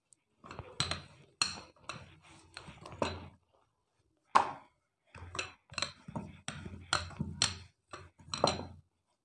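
Wooden rolling pin rolling out dough on a board: a run of knocks and rolling rumbles about two strokes a second. A brief pause about 3.5 s in ends with one sharp knock, and then the rolling starts again.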